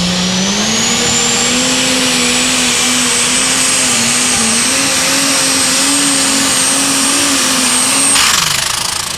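Allis-Chalmers Light Super Stock pulling tractor's turbocharged engine running at full throttle under the load of the sled, with a high turbo whine that climbs over the first couple of seconds and then holds. About eight seconds in, the revs fall away with a brief hiss as the driver backs out of the throttle because the tractor is getting out of shape.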